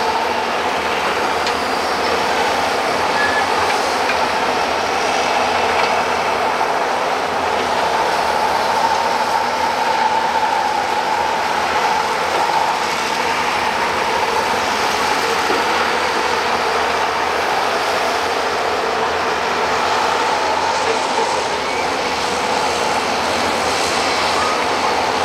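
Several hydraulic excavators digging mud: diesel engines running steadily under load with a steady whine over them.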